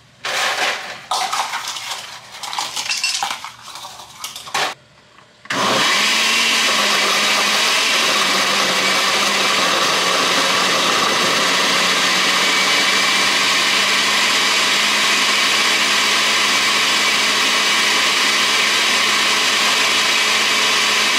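Countertop blender with a glass jar blending a fruit smoothie with ice. It starts with a few seconds of irregular bursts of noise. About five and a half seconds in it settles into a loud, steady run, its motor pitch dropping slightly just after starting as it takes the load.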